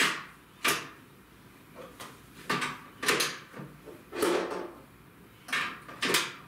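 Sharp plastic clicks and knocks, about eight at uneven intervals, two of them close together about three seconds in. They come from a Kurohige Kiki Ippatsu MAX5 (Pop-up Pirate) toy barrel as pirate figures are pushed down into it to load the game.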